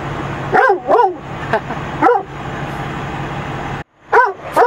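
A black Labrador barking in short barks: two quick ones a little over half a second in, another at about two seconds, then after a sudden gap two more near the end.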